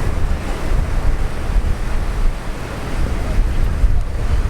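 Wind blowing across the microphone in a heavy, uneven low rumble, with Atlantic Ocean surf washing behind it.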